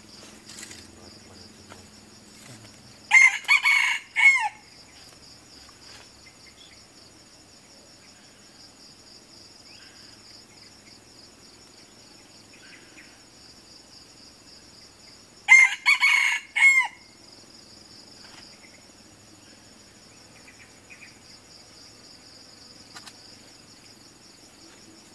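Red junglefowl rooster crowing twice, about twelve seconds apart. Each crow is short and clipped, a few quick notes with the last one falling. A steady high insect drone runs underneath.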